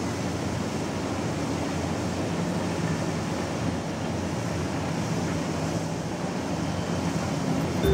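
Steady rushing hiss of bulk coal pouring down a loading chute onto the pile in a ship's cargo hold, with a faint low machine hum underneath.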